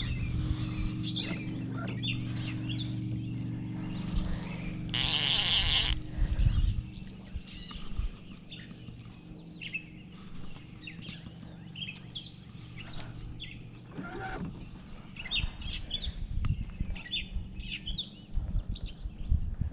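Small birds chirping and calling throughout. A steady low hum runs under them for the first several seconds, and about five seconds in a loud harsh hiss lasts about a second.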